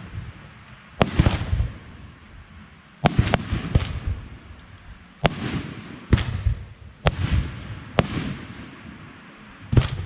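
Fireworks bursting overhead: about eight sharp bangs at uneven intervals, two of them in quick succession about three seconds in. Each bang is followed by a short crackling, rumbling tail.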